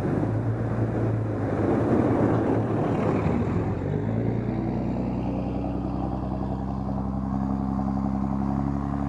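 Car close by: a rushing tyre-and-engine noise for the first few seconds, then from about four seconds in a steady engine hum at an even pitch.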